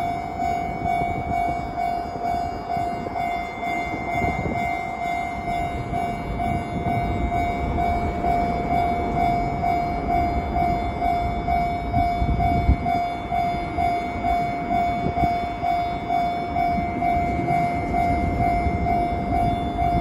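Japanese railway level-crossing warning bell ringing, one electronic tone repeating in a steady, even rhythm while the crossing is active for trains from both directions. A low rumbling noise runs underneath.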